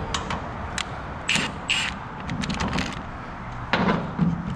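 Metal clinks and scrapes from hand work on a winch linkage: a few sharp clicks, two short scraping rasps about a second in, then more clicks near the end.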